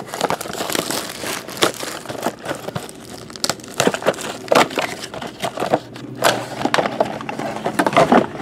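Plastic wrapping and packaging crinkling and crackling in irregular bursts as a sealed box of football trading cards is opened by hand.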